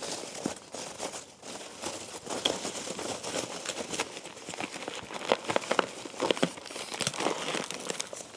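Hands rummaging through loose polystyrene packing peanuts in a cardboard shipping box: a continuous, irregular rustling and crackling, busiest about five to six seconds in.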